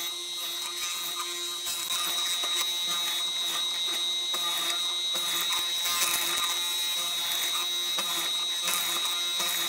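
Benchtop hollow-chisel mortiser running with a steady high whine as its square chisel is plunged again and again into a wooden board, chewing out a mortise.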